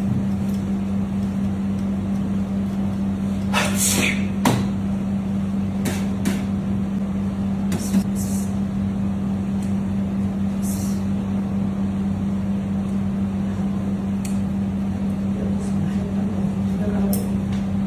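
A steady low hum, with a dozen short clicks and taps scattered through it and faint voices near the end.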